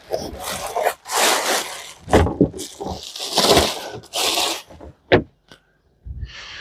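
Bubble wrap and plastic packaging crinkling and rustling as it is pulled off a new part, in repeated bursts, with a sharp click about five seconds in.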